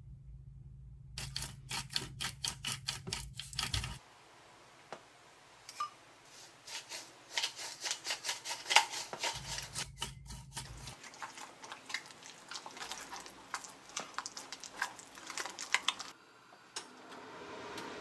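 Kitchen food-preparation noises: a quick, even run of sharp taps, about four a second, like chopping on a cutting board, then looser, irregular taps and clicks of utensils.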